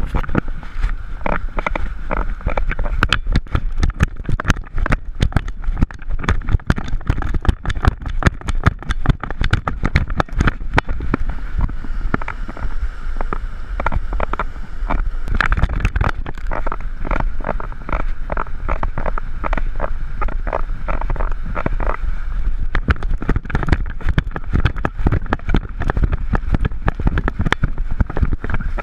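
Handling noise from a GoPro strapped to a running greyhound's harness: rapid knocks and rubbing with the dog's strides, over wind buffeting the microphone. The dog's feet splash through shallow water on wet sand.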